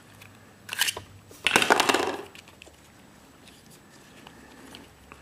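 Plastic casing of a laptop power adapter being pulled apart by hand, its tape peeling away: two short bursts of crackling about a second and two seconds in, then faint clicks of handling.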